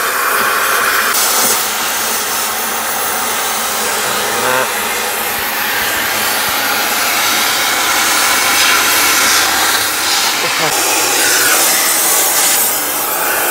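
Oxy-fuel gas cutting torch cutting through a steel box and chassis rail, a loud steady hissing rush of the cutting jet.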